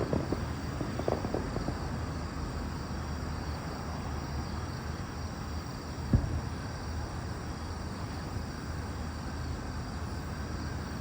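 A fireworks shell bursting with a single sharp boom about six seconds in, preceded by a few faint pops in the first second or so, over steady low outdoor rumble.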